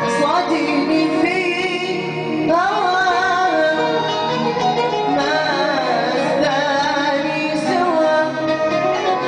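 Live Arabic wedding-party music: an ornamented, wavering melodic vocal line over held keyboard tones and oud accompaniment.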